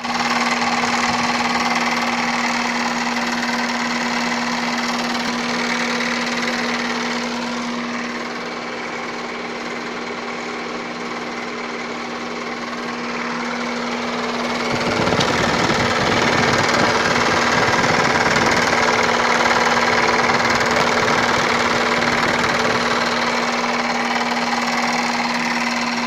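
Opel Astra's Z16XER 1.6-litre four-cylinder petrol engine running with a steady hum. About fifteen seconds in it gets louder and a low rattling knock sets in and carries on, the knock of the air-conditioning compressor.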